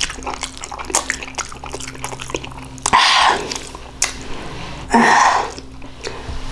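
A person chewing ramen noodles close to the microphone, with many small wet smacks and clicks, then two louder slurps of noodles about three and five seconds in.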